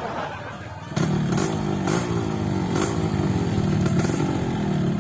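An engine running, coming in suddenly about a second in and holding steady, with slight shifts in pitch.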